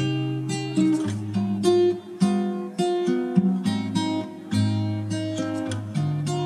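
Background music: a guitar playing a melody of plucked notes, one new note about every half second to second.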